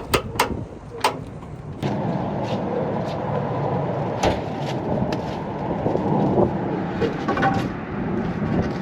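A few sharp metallic clanks, then about two seconds in a vehicle's steady running noise sets in and carries on, with occasional light knocks over it.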